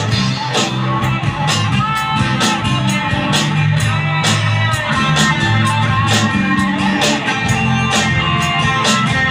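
Live rock band playing an instrumental passage: guitars with bass and a steady drum beat, cymbal or snare hits about twice a second.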